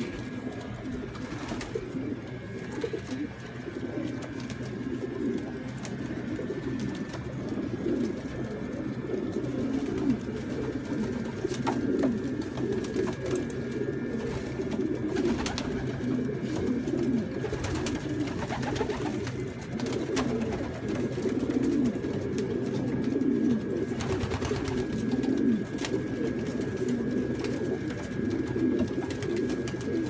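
A flock of caged domestic pigeons cooing continuously, many low warbling coos overlapping.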